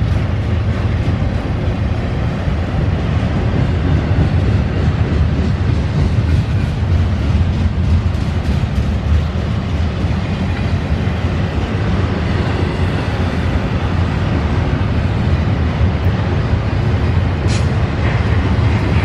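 Freight train rolling past on the rails: a steady, loud low rumble of wheels and cars, with a brief high-pitched squeal near the end.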